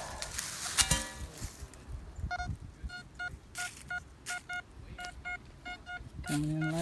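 Metal detector sounding a series of short, mid-pitched beeps, roughly three a second and unevenly spaced, as its search coil is swept over a freshly dug hole: the signal of a metal target in the hole. Before the beeps, a shovel scraping and knocking in sandy soil.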